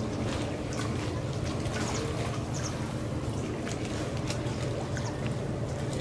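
Water splashing and lapping in irregular little crackles, over a steady low hum.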